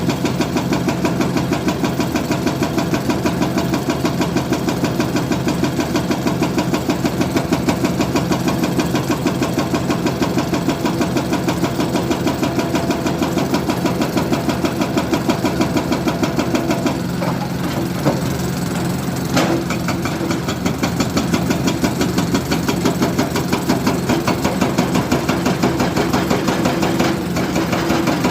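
Heavy diesel machine engine running steadily with a regular chugging pulse, about three beats a second. A couple of short knocks come about two-thirds of the way through.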